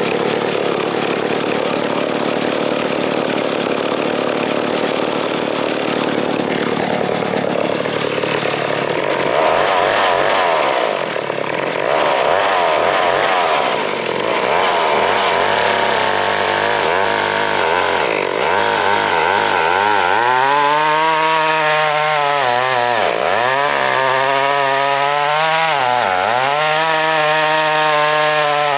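Big vintage Pioneer 1-80 chainsaw running at full throttle and bucking a log in its second half. The engine note dips sharply twice as the chain loads in the cut.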